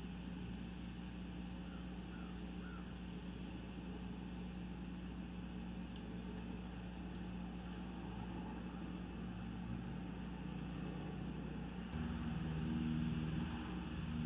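Steady outdoor background rumble with a constant low hum, growing louder about twelve seconds in, with three faint short chirps a couple of seconds in.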